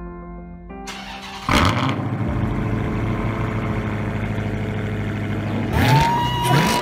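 The last chords of ambient music, then a car engine starts suddenly about a second and a half in and settles into a steady idle. Near the end it is revved once, the pitch rising and falling, with a whine rising alongside it.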